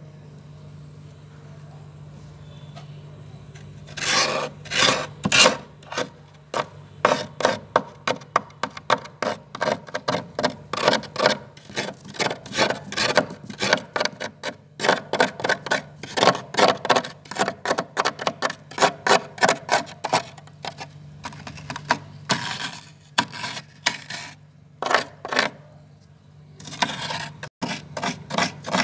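Spoon scraping packed white freezer frost in quick repeated strokes, about two to three a second, starting about four seconds in and thinning out briefly near the end before picking up again. A steady low hum sits underneath throughout.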